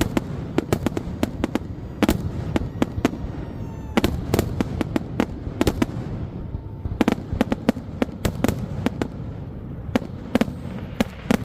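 Fireworks going off: a dense, irregular run of sharp bangs and cracks, several a second, in clusters with short lulls, over a steady low rumble.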